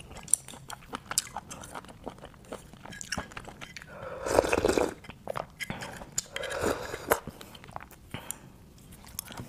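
Close-miked eating sounds of grilled garlic oysters: wet chewing with many small mouth clicks, and a louder slurp about four seconds in as an oyster and its juice are sucked off the half-shell.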